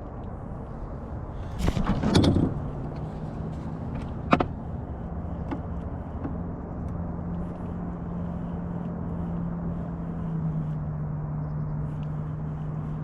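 Steady low motor hum on a small fishing boat, with a loud clatter about two seconds in and a single sharp knock a couple of seconds later.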